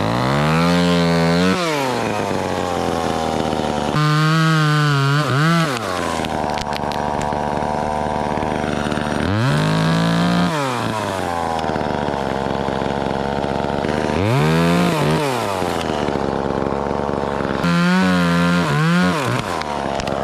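Chainsaw running, revving up and dropping back about five times, idling steadily between revs.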